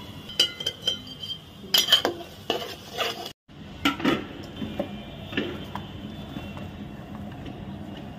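Metal spoon clinking and scraping against a steel cooking pot of minced mutton, a run of sharp ringing clinks through the first three seconds. After an abrupt cut, a few softer knocks.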